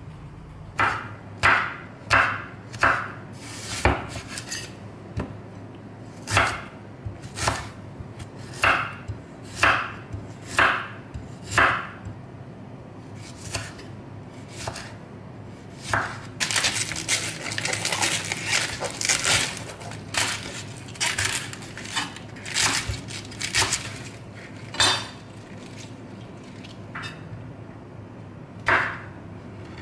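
A chef's knife cutting tomato and king oyster mushrooms on a wooden chopping board: a string of separate knocks of the blade onto the wood, about one a second, with a quicker, closer-spaced run of cuts in the middle.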